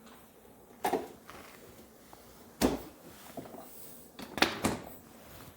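A few separate clunks and knocks of a refrigerator compartment being handled: one about a second in, a louder one in the middle, and a quick pair near the end, with faint rustling between them.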